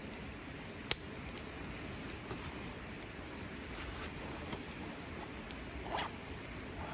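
Wood campfire burning with a steady hiss and scattered crackles, one sharp pop about a second in.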